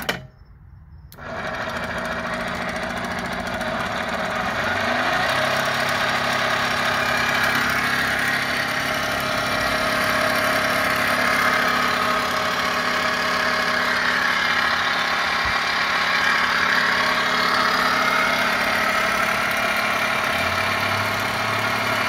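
A 24-volt electric go-kart motor driving a converted outboard's gears and propeller out of the water, running loud. It cuts out for about a second near the start as the forward/reverse switch is flipped, then starts again and builds over a few seconds to a steady hum and whine.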